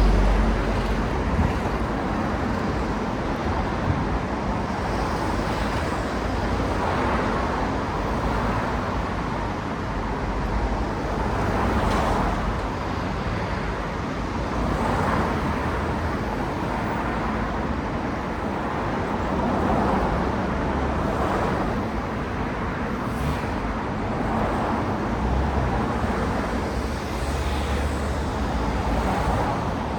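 Steady city road traffic: cars passing one after another, their tyre and engine noise swelling and fading every few seconds over a constant hum.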